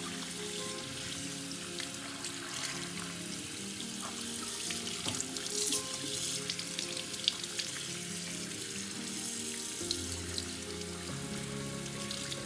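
Tap water running steadily into a bathroom sink and splashing over a puppy held under the stream and rinsed by hand, with soft background music of held notes.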